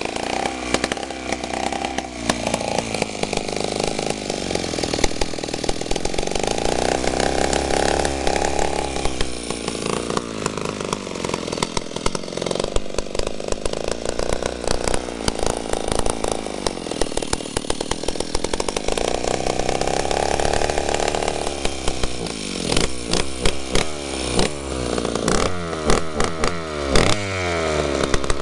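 Stihl 048 AV two-stroke chainsaw running on a test run, revved and held high for several seconds twice with lower running between, then blipped up and down in quick short revs near the end. The engine starts and runs, though the saw is kept only for parts or repair.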